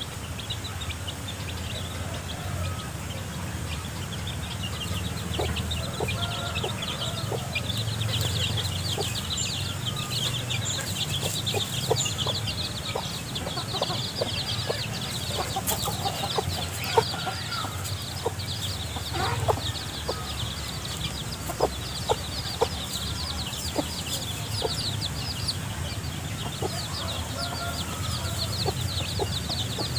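A flock of chicks peeping constantly in short, high, falling cheeps while a mother hen clucks low, with scattered sharp clicks and rustles as the hen and chicks scratch and peck through dry leaf litter for worms.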